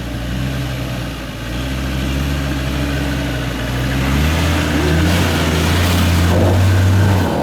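Off-road vehicle's engine pulling uphill at low revs, then revving up about four seconds in and holding the higher note before the throttle is let off suddenly at the end.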